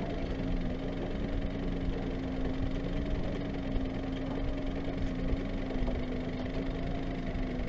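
Outboard motor running steadily at trolling speed: a constant engine hum, its pitch wavering slightly, over a low rumble.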